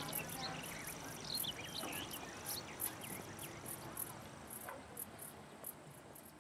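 Crickets chirping in a steady rapid pulse, with a faint high trill and scattered short high chirps over a soft background hiss; the whole ambience fades down toward the end.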